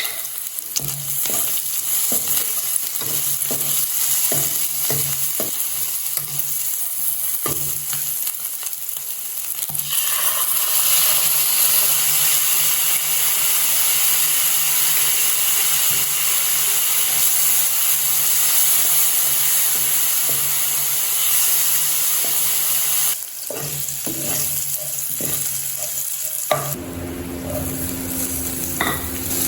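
Food frying and sizzling in a pan, stirred with a utensil that knocks and scrapes against it. About ten seconds in the sizzle swells into a loud steady hiss. Near the end it drops back and a low steady hum comes in.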